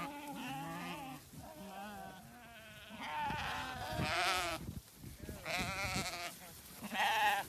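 Sheep bleating: about half a dozen quavering bleats from several animals, one after another, the loudest about four seconds in and near the end.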